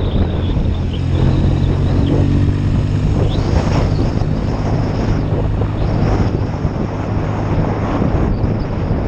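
BSA Lightning's 650 cc parallel-twin engine running under way, with wind buffeting the microphone. The engine note changes briefly about two seconds in.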